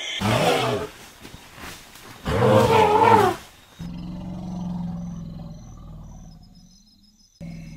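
Wild elephant trumpeting twice: a short call, then a longer, louder call with a wavering pitch about two seconds later. A steady low hum with faint high chirps follows.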